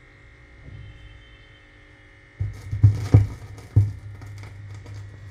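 Turntable stylus set down on a spinning vinyl record: faint hum at first, then about two and a half seconds in the Audio-Technica cartridge lands with a few thumps, and the lead-in groove plays as a steady low hum with clicks and crackle of surface noise.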